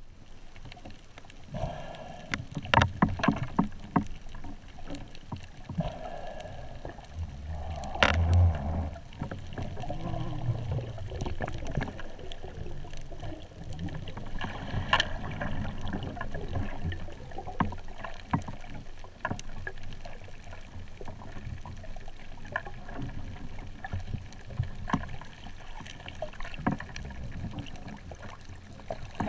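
Underwater sound picked up through a waterproof camera housing: muffled water movement with scattered clicks and knocks, and a heavier low thump about eight seconds in.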